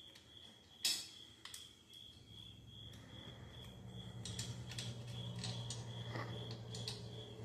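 Crickets chirping steadily, with a sharp metallic click about a second in and scattered clicks and clinks of tools and hub bolts being handled later. A low hum builds from about two seconds in.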